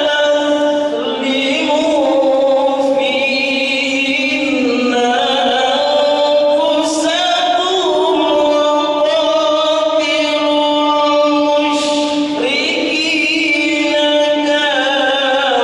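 A man's voice singing an unaccompanied, melismatic devotional chant into a microphone. He holds long notes with wavering ornaments that slide up and down in pitch.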